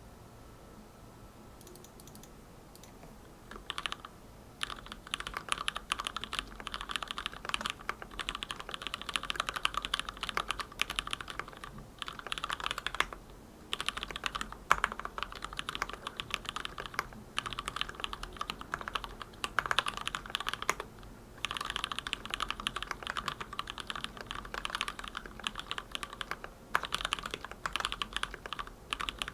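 Typing on a hand-wired Aroz65 mechanical keyboard with Gateron Milky Black linear switches lubed with Krytox 205g0, in a stacked acrylic sandwich case with WhiteArrows keycaps. After a few quiet seconds a steady run of fast keystrokes starts, broken by three brief pauses.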